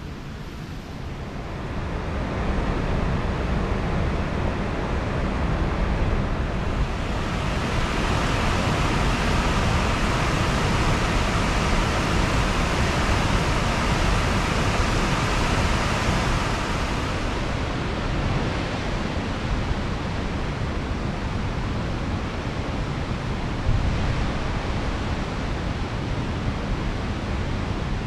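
Steady rush of creek water, growing brighter and louder for several seconds in the middle, over a low rumble of wind on the microphone.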